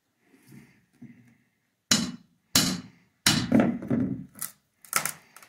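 Hammer striking a steel nail bar to drive it under a carpet tack strip's nail on a wooden subfloor: a run of sharp knocks starting about two seconds in, with one longer, rougher stretch in the middle as the bar works at the strip.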